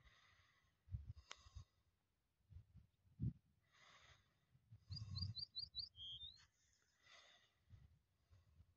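Faint birdsong in open countryside: a small bird gives a quick run of five short rising chirps about five seconds in, with other faint calls around it. Intermittent low rumbles sit underneath.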